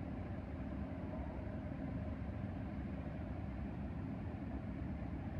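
Amtrak Crescent passenger train standing at the platform, giving a steady low rumble and hum from its idling diesel power and the cars' onboard equipment.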